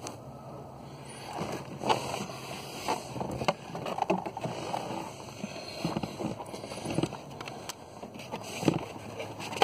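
Close-up handling noise: irregular clunks, clicks and scrapes of parts being moved and fitted by hand, with rustling in between.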